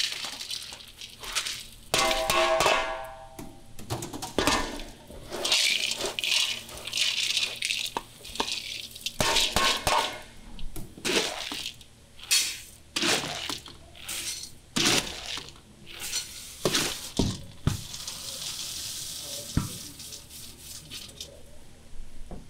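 Roasted peanut halves poured and scooped into a stainless-steel bowl: a rushing rattle of dry nuts with repeated clatter against the metal. A short ringing tone sounds about two seconds in.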